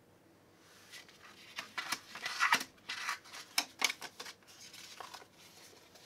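Paper pattern pieces being picked up off a cutting mat and gathered together by hand: irregular crisp rustling and crackling of paper, loudest about two and a half seconds in.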